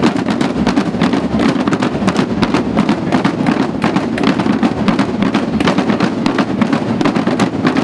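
A street drum band playing together: snare drums and large bass drums struck in a dense, continuous driving rhythm.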